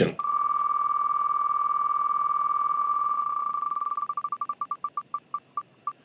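Wheel of Names website's spin sound effect: electronic ticks so fast they run together into a steady tone, breaking into separate ticks about four seconds in that slow down more and more as the wheel comes to rest.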